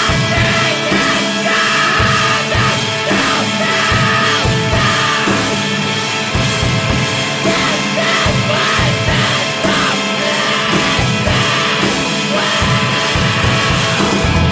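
Loud rock song with a shouted, strained lead vocal over the full band and its steady drum beat.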